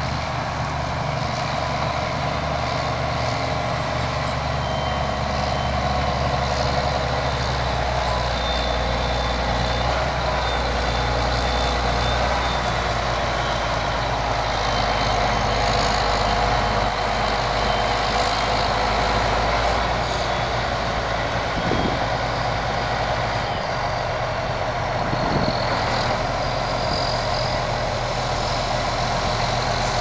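Case IH tractor engine running steadily at working speed while the grain cart's unloading auger runs, conveying shelled corn into a semi trailer: a continuous low engine drone under a dense mechanical din.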